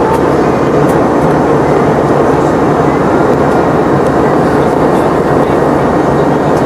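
Boeing 717-200's rear-mounted Rolls-Royce BR715 turbofans heard inside the cabin: a loud, steady rushing drone with no change.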